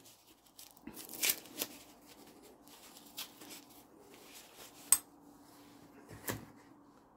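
Tissue wrapping rustling as a small gift is unwrapped and handled, with a few light clicks and knocks, a sharp click just before five seconds in.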